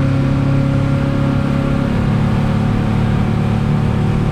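Boat's outboard motor running steadily under way, its note shifting a little about two seconds in.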